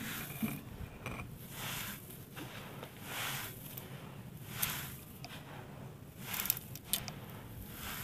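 Handfuls of dry, crumbled clay grit scooped up and let fall onto a heap: a gritty pouring and scattering that swells and fades every second or so, with a few sharp clicks as harder lumps land.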